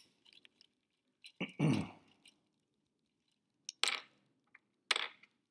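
Small clicks and taps of a screwdriver and tiny metal screws being worked out of a die-cast model car's chassis and handled, with a short, louder low sound about a second and a half in and two more clicks near the end.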